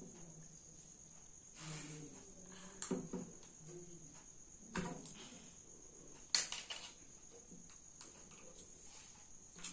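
Faint clicks and crinkles of a thin plastic water bottle being pierced with a safety pin, a handful of sharp ticks a second or two apart, the loudest about six seconds in.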